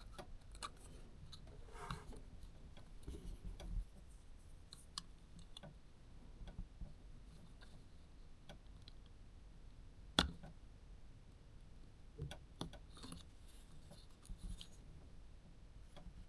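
Faint scattered clicks and light handling noises from small tools and fingers working on the parts of an opened camera lens, with one sharper click about ten seconds in.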